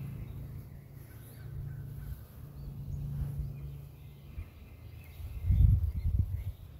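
Outdoor garden ambience: faint bird chirps over a steady low rumble, with a louder burst of low rumbling noise on the microphone about five and a half seconds in.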